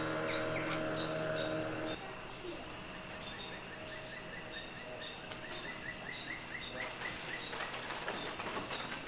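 Rainforest ambience: a steady insect drone, with a run of about six rising high-pitched chirps, roughly two a second, in the middle.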